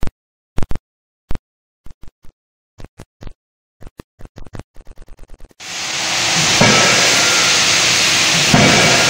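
A logo sound effect of short ticks coming faster and faster, then a sudden cut to the loud, steady hiss and rumble of a forging shop working a 25 kJ closed-die forging hammer, with two heavier swells near the end.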